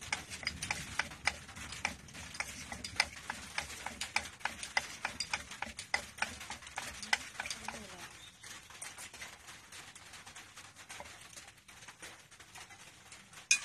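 Wooden pestle pounding papaya salad in an earthenware mortar: a steady run of sharp knocks about three a second, fading after about eight seconds, with one loud knock near the end.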